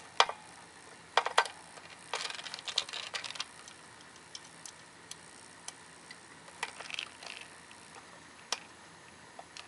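A screwdriver working a small screw into a sheet-metal case, giving sharp metal clicks and short scrapes in bunches with pauses between: a pair of clicks about a second in, a run of scraping clicks around two to three seconds in, another bunch around seven seconds, and a lone click near the end.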